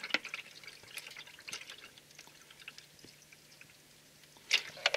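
Toyota WS automatic transmission fluid draining in a stream from the 2007 Camry's transmission pan drain hole, pouring and dripping into a catch container in irregular splatters that thin out after about two seconds. A few sharp knocks come near the end.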